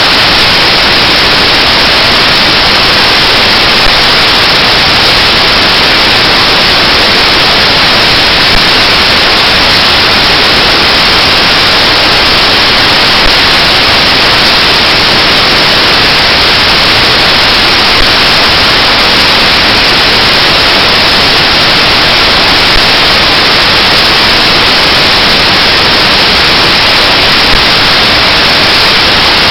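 Loud, steady static hiss filling the audio track, unchanging, with a faint tick about every five seconds.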